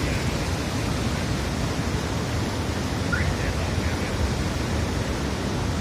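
Floodwater in a swollen river rushing past, a steady, even noise of churning water.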